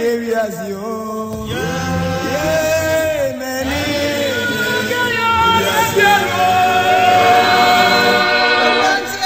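Group singing to music: several voices singing together like a choir, in a chant-like gospel song.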